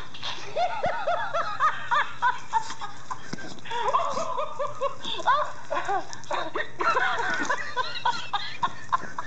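Plush laughing-monkey toy playing its recorded laughter: quick rising-and-falling hoots, several a second, in bouts.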